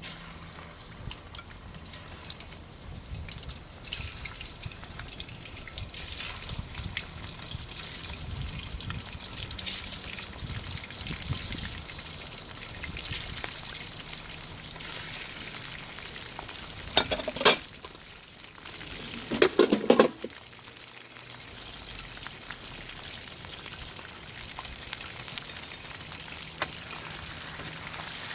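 Food sizzling steadily as it fries in hot oil in a karahi pan, with two short loud clatters of stirring against the pan about two-thirds of the way in.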